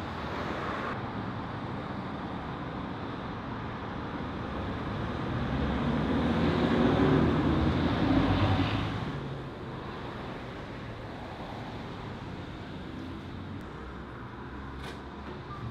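Street traffic noise, with one vehicle passing close by about halfway through, its sound swelling and then fading.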